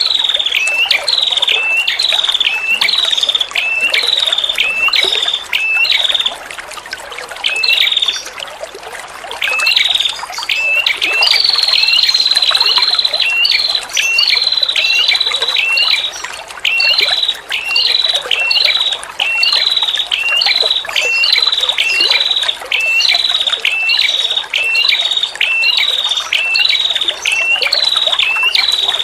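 Female red-headed prenjak (prenjak kepala merah) repeating a short, high call that drops in pitch, nearly twice a second, with a long high trill about eleven seconds in. The calls pause briefly about six seconds in. Trickling water runs underneath.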